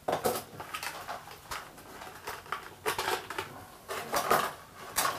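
Unpacking noises from a small case of fishing pliers being opened: irregular rustling, clicks and knocks, with a sharp one right at the start and a louder flurry about four seconds in.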